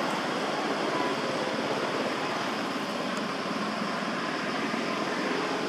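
Steady outdoor background noise, an even rushing hiss with no distinct events.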